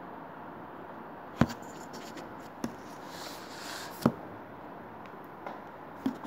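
Handling noise on a desk: four sharp knocks, the first the loudest, and a brief rustle partway through, over a steady low room hiss.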